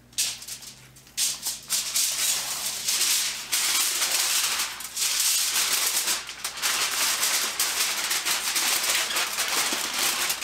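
Aluminum foil crinkling and crackling as it is handled and folded around ribs. It starts with a sharp crackle just after the start and runs almost without a break from about a second in.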